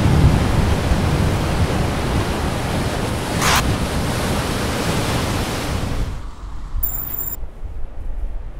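Heavy storm surf breaking against a harbour breakwater, with wind blowing on the microphone: a dense, steady rushing noise, and a brief whoosh about three and a half seconds in. About six seconds in it gives way to quieter, gusty wind rumble.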